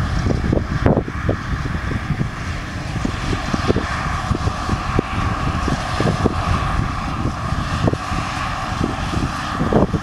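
Fendt 942 tractor's diesel engine running steadily under load while pulling a Massey Ferguson 2290 big square baler through the field, with a steady whine above the engine rumble. Irregular short low thuds sound throughout.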